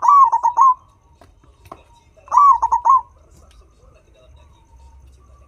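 Turtledove cooing twice, each call a swooping first note followed by three quick short coos, about two seconds apart.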